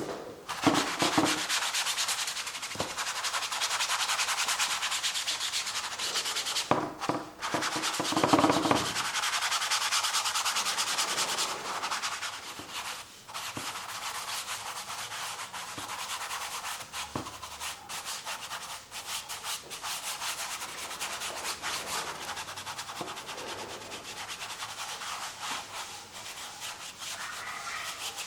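Acrylic paint being scrubbed onto canvas: a dry, scratchy rubbing of quick, close strokes, louder for the first ten seconds or so with a short pause, then softer.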